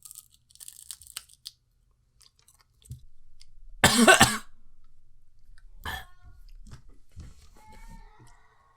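A man coughs hard once about four seconds in, then gives a smaller cough near six seconds, with quiet mouth and chewing noises in between. The coughing is from the burn of a ghost pepper in his throat.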